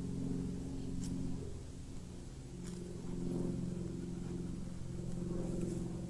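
An engine idling steadily nearby, a low droning hum that swells and eases slightly.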